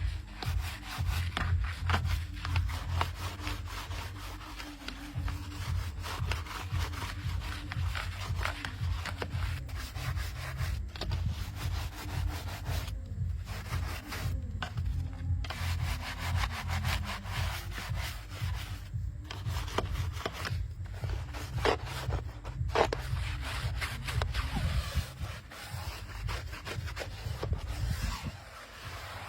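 Rapid, repeated scrubbing strokes rubbing across a surface, with a few short pauses, over a low steady hum.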